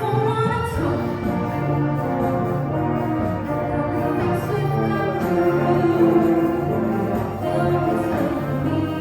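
Live orchestral ensemble playing sustained chords at a sound check, with singing.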